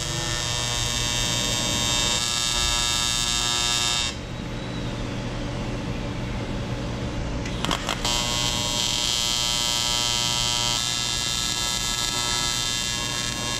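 Electric arc welder buzzing steadily as it welds a crack in an engine oil pan. The buzz stops about four seconds in and starts again about four seconds later, running almost to the end.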